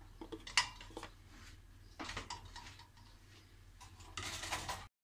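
Light kitchen clatter as eggs are set into a stainless steel pot of water and a plastic bowl is handled: a sharp knock about half a second in, a few more knocks around two seconds, and a rattle of handling near the end.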